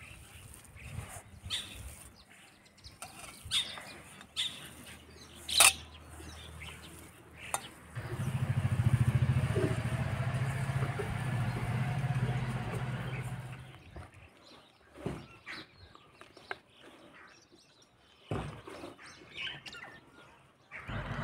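Hands squeezing and mixing a moist kebab mixture in a steel bowl, with sharp clicks of a metal bangle and ring against the bowl and birds chirping. About eight seconds in, a motor engine hum comes in sharply and is the loudest sound for about six seconds, then fades away.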